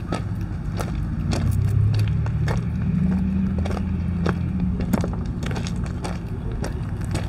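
Diesel-electric switcher locomotives idling with a steady low rumble that swells through the middle, over footsteps crunching on gravel ballast about twice a second.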